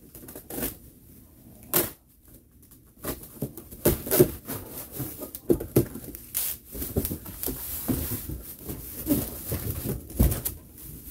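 A box cutter slicing through packing tape and cardboard, and the cardboard box flaps being pulled open, giving a run of irregular scrapes, taps and rustles.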